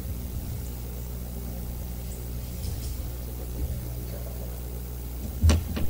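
Steady low hum of room or mains noise with faint rustling, and a short thump about five and a half seconds in.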